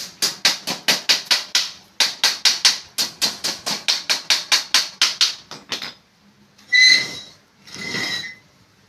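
Rapid knocking, about six sharp blows a second, in two runs with a short break about two seconds in, then two short rasping sounds near the end.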